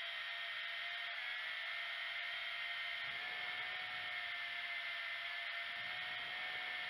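Tarantula X6 quadcopter's four brushed motors and propellers whining steadily in flight, heard through the onboard camera, the pitch wavering slightly as the throttle changes.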